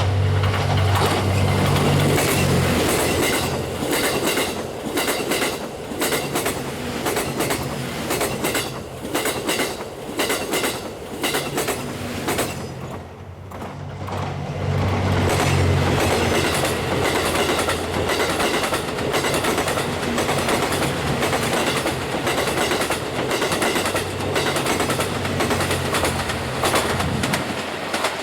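Series 87 Twilight Express Mizukaze diesel train passing close by: a continuous clatter of wheels over the rails, with the low drone of its diesel engines strong near the start and again a little past the middle, and a brief lull just before that.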